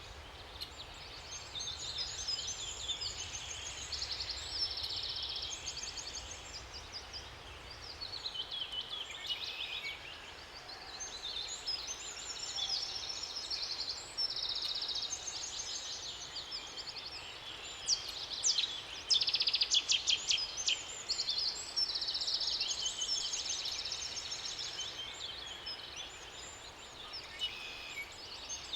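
Several songbirds singing at once: overlapping high, rapid phrases and trills, one after another, busiest and loudest about two-thirds of the way through. A faint steady background noise lies under the song.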